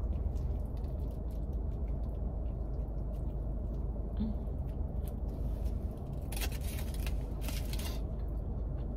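A person biting into and chewing a mouthful of burrito, with faint wet mouth clicks, over a steady low rumble. Two short crinkling bursts from the foil wrapper come near the end.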